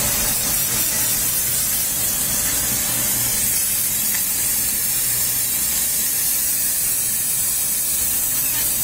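Dry vapor steam cleaner jetting steam from its nozzle in a steady, unbroken hiss.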